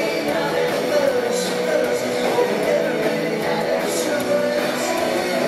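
Live rock band playing, led by electric guitar, heard from within the audience.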